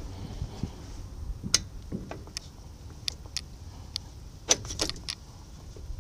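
Metal brake hardware clicking and clinking as the parking-brake link and shoes of a 1963 Chevy C20 heavy-duty rear drum brake are worked into position by hand: about eight sharp ticks, the loudest about a second and a half in and about four and a half seconds in, over a low rumble.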